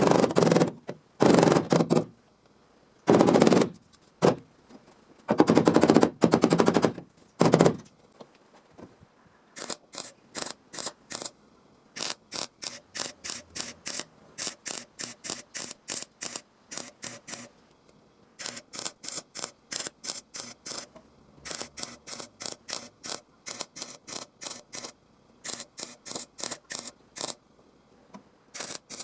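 MIG welder arcing on sheet steel in repeated bursts, a crackling sizzle. The first few welds last up to about a second and a half each; from about ten seconds in they become short pulses at two to three a second, in runs with brief pauses, as in plug or stitch welding.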